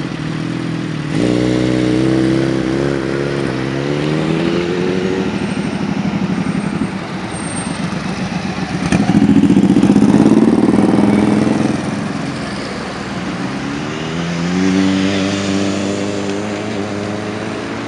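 Vehicle engines pulling away one after another. About a second in, an engine accelerates, its pitch rising as it revs. Around nine seconds in, the loudest part, two cruiser motorcycles ride past, and near the end another engine accelerates with rising pitch.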